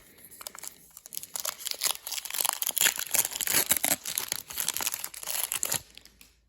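Crinkling and tearing of a trading-card pack's plastic wrapper as it is opened by hand, a dense crackle that stops suddenly near the end.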